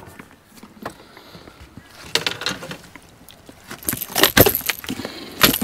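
A landed blue catfish thrashing on a boat deck: quick runs of rattling clicks about two seconds in and again, louder, from about four seconds in.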